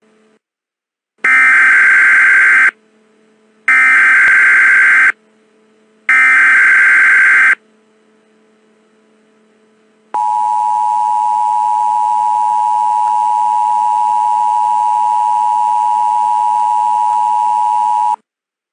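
Emergency Alert System tones: three short bursts of SAME header data, then the steady two-tone attention signal at about 853 and 960 Hz. The attention signal is held for about eight seconds and cuts off near the end.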